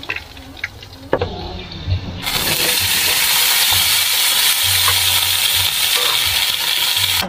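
A few metal clinks and a ringing knock of cookware, then about two seconds in, vegetables (long beans, bitter gourd, eggplant) go into hot oil in a wok and start a loud, steady sizzle as they are stir-fried with a metal spatula.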